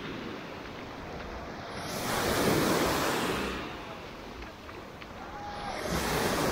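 Black Sea surf breaking and washing up the sand shore, swelling and fading twice about four seconds apart.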